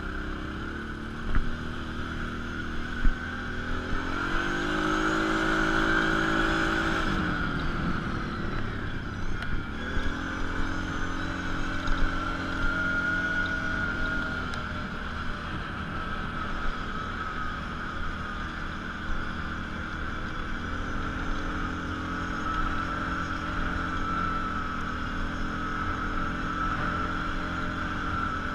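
ATV engine running under throttle, its pitch climbing from about four seconds in, dropping sharply a few seconds later, then rising again and holding fairly steady. Two sharp knocks in the first few seconds.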